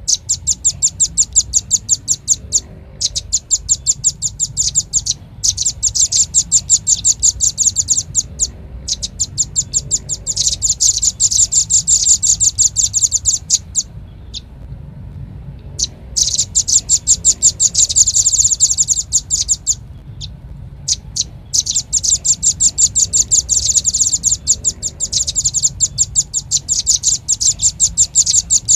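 Velvet-fronted nuthatch calls: rapid trains of sharp, high chips, about eight to ten a second, in runs of a few seconds with brief pauses. A steady low hum runs underneath.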